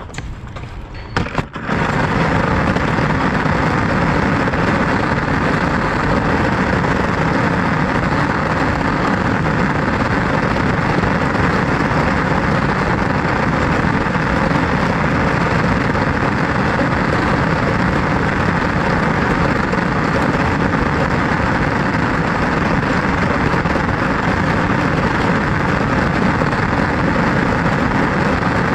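A loud, steady rush of vehicle running noise, cutting in abruptly about two seconds in after a few sharp knocks, and holding level without rising or falling.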